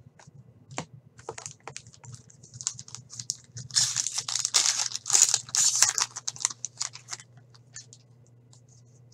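Foil wrapper of a hockey card pack being torn open, a loud crackling crinkle lasting about three seconds in the middle. Before it come light clicks and taps of cards being handled, and a few more just after.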